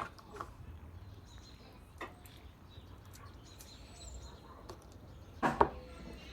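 A few sharp knocks of kitchen utensils on a hard surface, the loudest a double clatter about five and a half seconds in, with faint bird chirps in the background.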